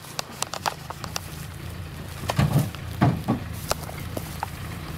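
Footsteps crunching through dry grass and brush, with a quick run of sharp snaps and clicks in the first second or so, over the low steady running of a truck's engine. Two short low sounds come about two and a half and three seconds in.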